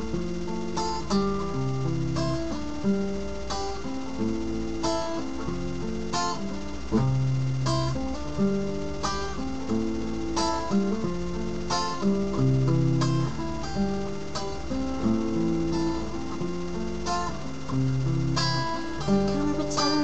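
Instrumental music led by acoustic guitar: plucked chord notes over low bass notes, with a steady beat.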